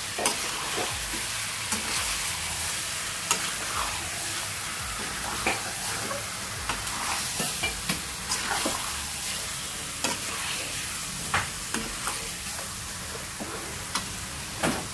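A steel spoon stirring chicken and potato pieces around a sizzling frying pan, with irregular scrapes and knocks of the spoon against the pan over a steady sizzle, as freshly added spice powders fry in with the meat.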